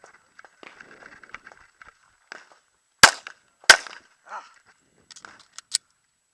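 Two handgun shots about three seconds in, less than a second apart, with faint clicking and rustling in the pause before them and a few light sharp ticks after.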